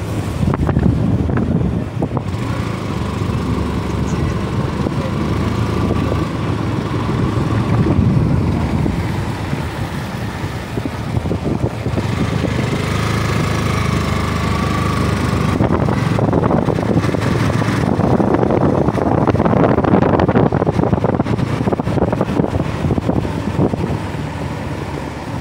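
Motorcycle engine running steadily as the bike is ridden at low speed, heard from the rider's seat.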